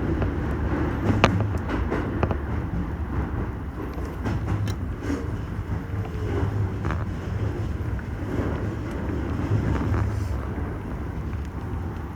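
Toei Shinjuku Line subway train running, heard as a steady low rumble with occasional sharp clicks.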